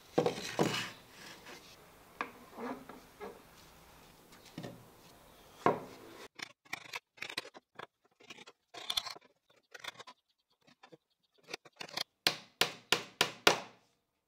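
Pine slats and the wooden crate knocking, clicking and rubbing together as the pieces are handled and fitted into place, with a quick run of light clicks near the end.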